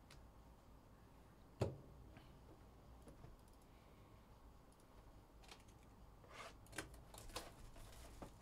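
Faint taps and clicks of a cardboard Donruss football card box being picked up and handled: one sharp tap about one and a half seconds in, then a cluster of small clicks and scrapes near the end.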